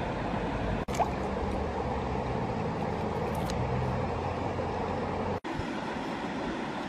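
Steady rushing outdoor noise, with the sound cutting out sharply for an instant twice, about a second in and about five and a half seconds in.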